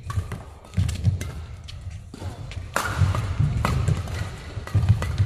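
Doubles badminton rally: rackets hitting the shuttlecock with sharp, irregular cracks, mixed with the players' feet thudding on the court.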